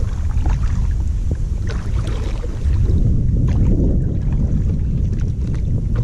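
Double-bladed paddle strokes dipping and splashing beside an inflatable Varvar-340 kayak, a splash every second or so, over a steady low rumble of wind on the microphone.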